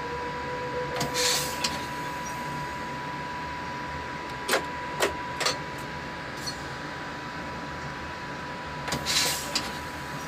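Inside a locomotive cab: a steady high electronic tone over a low hum, with two short hissing bursts, one about a second in and one near the end, and three sharp clicks around the middle.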